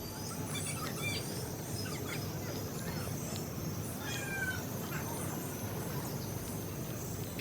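Birds calling in an aviary: many short chirps and whistled calls, some sliding in pitch, over a steady background hiss.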